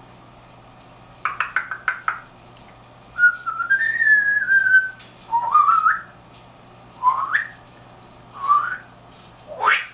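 African grey parrot whistling. A quick run of clicky chatter comes first, then one long wavering whistle, then four short whistles that each slide upward, about a second and a half apart.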